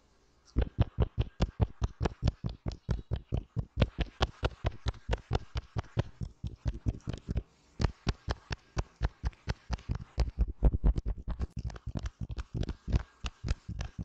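Fingertips quickly tapping and patting on a soft desk mat close to the microphone: a fast, even run of soft thuds, about five or six a second, as in face-patting during a skin care routine.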